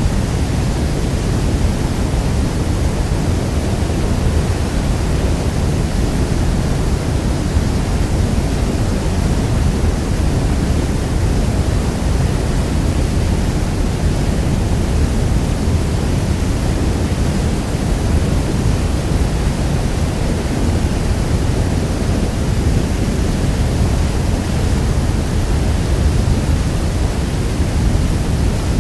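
Niagara Falls: the steady, deep rush of a huge waterfall's falling water, strongest in the low end, without a break.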